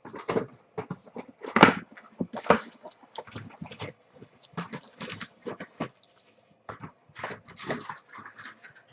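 Plastic trading-card pack wrappers being torn open and crinkled, with cards being handled: a run of irregular rustling crackles, the loudest about one and a half and two and a half seconds in.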